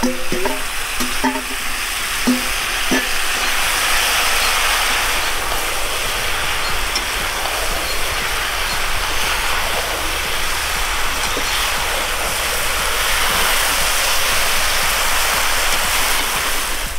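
Meat and potatoes sizzling loudly and steadily in a hot cast-iron kazan over a wood fire, as freshly added food fries and is stirred. A few clinks of a metal spoon against the steel bowl and pot come in the first three seconds.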